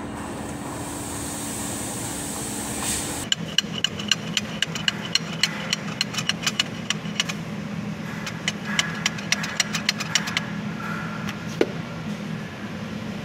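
Sharp metallic clicks, about three a second from about three seconds in until near the end, as a splined steel propeller shaft is worked into its bore in a tractor's cast housing, over a steady low machine hum.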